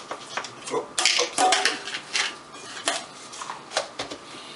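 Gloved hands handling a raw chicken breast on a cutting board, making irregular short scrapes, taps and rustles.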